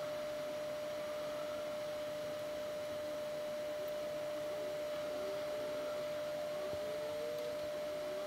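A steady pure tone at one fixed pitch, with a few faint rising chirps beneath it.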